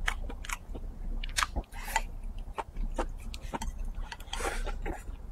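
Close-up mouth sounds of a person chewing a mouthful of rice and braised pork: wet smacks and clicks of lips and tongue coming quickly and unevenly, with a short breathy intake about four seconds in as another chopstick-load goes into the mouth.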